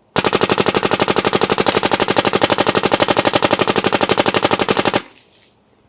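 Shocker XLS paintball marker with an HK Army LAZR barrel kit firing a rapid string of paintballs, about twelve shots a second for nearly five seconds, then stopping suddenly. A sound meter reads the string at about 90 dB.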